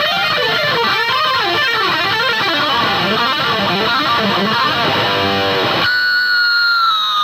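Distorted electric guitar playing a lead line with wide vibrato and bends, then holding one long note near the end that bends slightly down.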